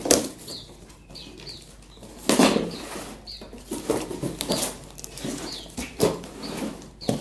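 Cucak jenggot (grey-cheeked bulbuls) fluttering and flapping their wings in several short bursts while being handled, with a few brief high chirps between the bursts.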